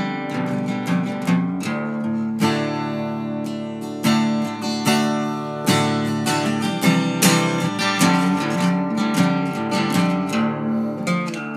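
Background music led by strummed acoustic guitar, with a steady rhythm of plucked and strummed chords.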